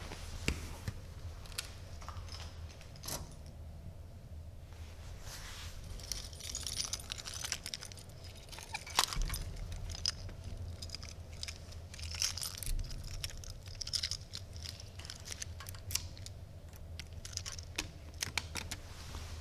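Quick small clicks, rattles and rustles of hands fumbling with small objects, growing busier partway through, over a low steady hum.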